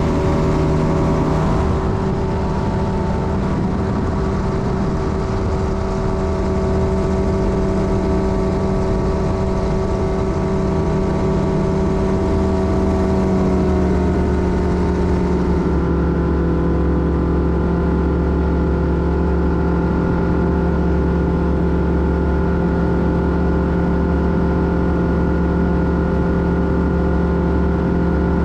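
Light bushplane's engine and propeller running steadily at flight power. Partway through the pitch settles a little lower and then holds steady.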